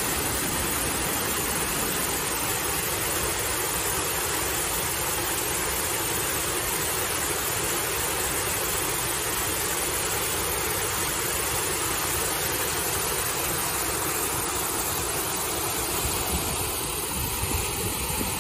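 Canal water jetting through the gaps in a wooden lock gate and splashing into the lock chamber below: a steady rushing of water.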